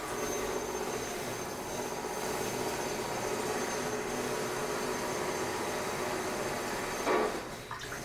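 Construction machinery running with a steady drone and hum, with a short louder burst about seven seconds in.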